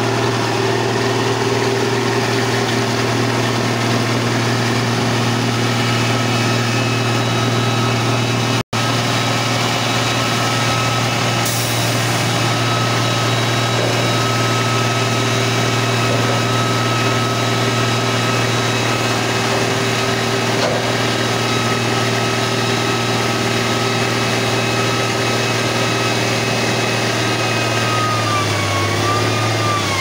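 Diesel engines running steadily: the Cat 416F backhoe loader's, then, after a brief dropout about nine seconds in, a dump truck's as its bed tips to dump rocky fill. A faint high steady whine runs through the second part, and its pitch wavers near the end.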